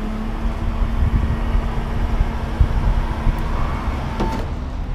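Heavy-duty wrecker's engine running with its PTO-driven hydraulics engaged, a loud low rumble. A steady hum starts as the boom function is worked and stops about four seconds in, with a short click.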